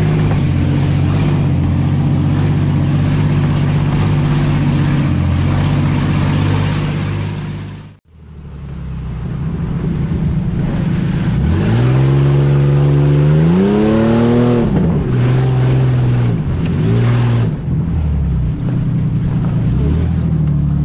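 Off-road 4x4 engine running steadily under load on a muddy track. The sound dips out sharply about eight seconds in. It then comes back, and the engine revs up with a rising pitch, drops back and keeps rising and falling with the throttle.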